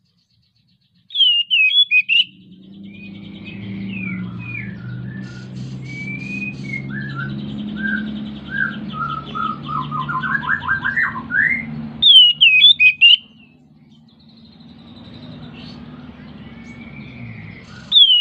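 Oriental magpie-robin singing in breeding condition, after about a second of silence. Loud clusters of rapid, sharp, high whistled notes come about a second in, again about twelve seconds in and near the end. Between them runs a varied, rambling song of softer sliding notes and trills.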